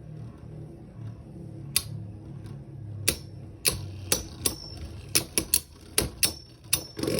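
Beyblade Burst tops spinning in a plastic stadium with a low steady hum, clashing against each other in sharp clicks that come faster from about three seconds in.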